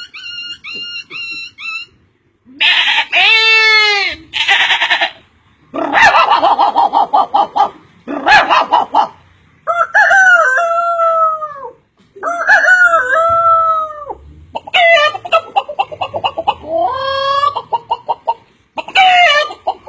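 Chickens calling: a quick run of short peeps, then a series of separate rooster crows and clucking calls, each a second or two long with short gaps between.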